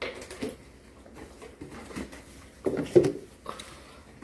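Scattered small knocks and rustles of things handled at a table: food wrappers, cups and a juice carton. The loudest cluster comes just under three seconds in.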